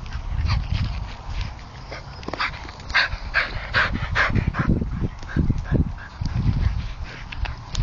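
Bedlington terriers playing close to the microphone, making a quick run of short yips and whines, thickest in the middle.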